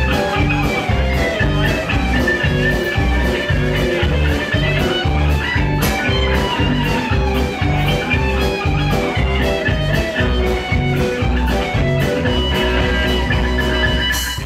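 Blues-rock music with guitar over a bass line and a steady beat, played as a segment bumper between the host's question and the answer.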